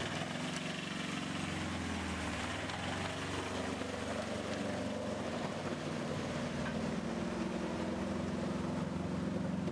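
An engine running steadily, growing a little louder near the end.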